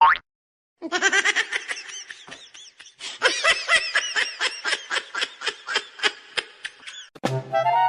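A person laughing hard, a long run of rapid laughing pulses about five a second that fades and then swells again. Music with drums comes in near the end.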